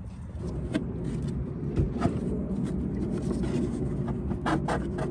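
Plastic engine air box being tugged up off its mounting studs and rubber grommets: a few scrapes and knocks, the strongest near the end, over a steady low rumble.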